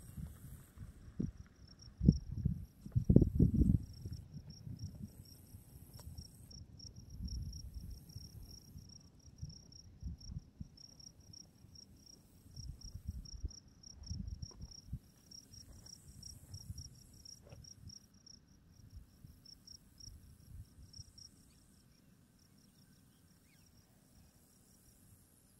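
An insect trilling steadily in rapid, even pulses, with low rumbles and knocks on the microphone, loudest about two to four seconds in.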